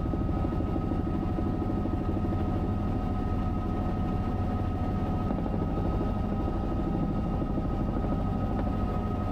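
Bell 505 helicopter's turboshaft engine and rotor running steadily, heard from inside the cabin: a fast low rotor beat with a steady high turbine whine over it.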